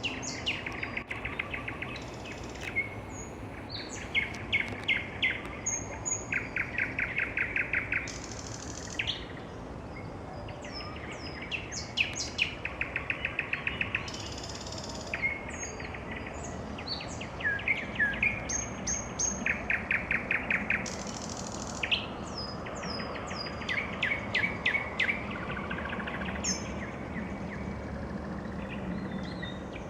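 Nightingale singing: varied phrases of whistles and fast rattling series of repeated notes, about ten notes a second, with short pauses between phrases.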